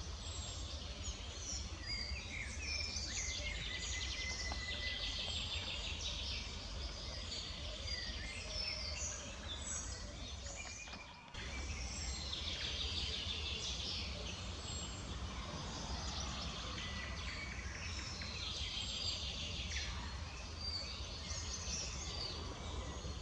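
Several birds chirping and singing over a steady low rumble, with a brief drop-out about eleven seconds in.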